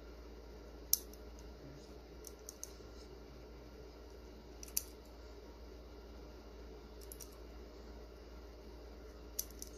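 Small fly-tying scissors snipping off material ends at the fly's head: a handful of sharp, short clicks spread out, with a few in quick pairs. A faint steady hum lies underneath.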